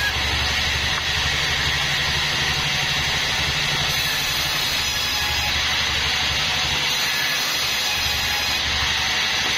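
Sawmill band saw running: a steady, loud noise over a low hum.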